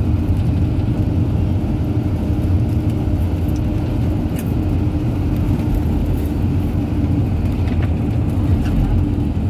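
Steady low rumble of a long-distance coach's engine and tyres on the road, heard from inside the cabin, with a faint steady hum and a couple of faint ticks.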